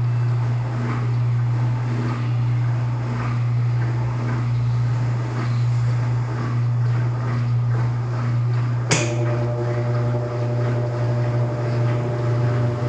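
Electrolux LTD13 13 kg washing machine running in its second rinse: a steady low motor hum with a faint beat about once a second. About nine seconds in there is a sharp click, and a higher, steady whine joins the hum.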